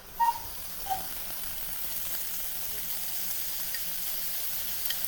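Boiled, water-soaked butterbur (fuki) stalks going into a hot frying pan with fried tofu and sizzling steadily in the tofu's oil, after a couple of light clinks in the first second.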